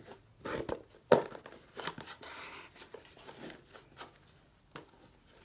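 A small cardboard gift box handled in the hands: irregular rustling and scraping of the box and lid, with several sharp clicks and one loud knock about a second in.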